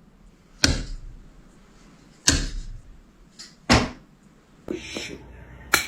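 Four sharp knocks, about a second and a half apart, each fading quickly.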